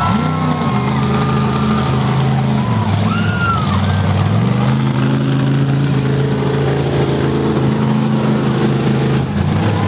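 Monster truck engine running hard as the truck drives around the arena. It eases off about three seconds in, climbs to a higher, steady pitch, and drops again near the end.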